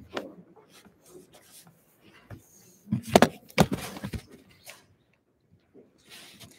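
Handling noise of a phone camera being carried and set down against a chair: rubbing and small clicks, with a cluster of sharp knocks about three to four and a half seconds in.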